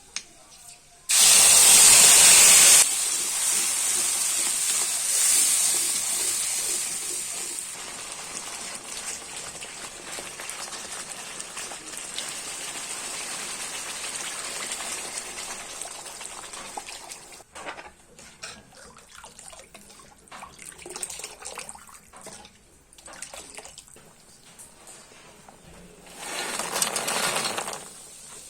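Water gushing loudly about a second in, easing over the next dozen seconds into a softer steady hiss, with scattered light clicks and a second short gush near the end.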